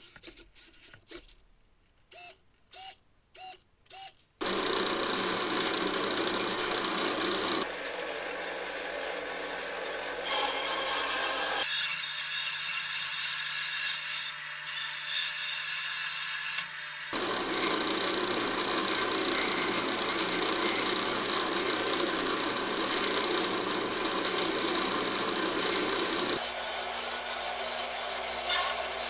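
Vertical band saw running and cutting small yellow plastic parts, a steady noisy buzz of blade through plastic whose tone changes abruptly a few times. Before it starts, four short high tones.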